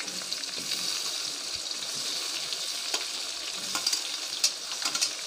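Oil sizzling steadily in a wok as sliced tomatoes are spooned off a steel plate into it. A few light clicks and scrapes of a metal spoon on the plate come about three to five seconds in.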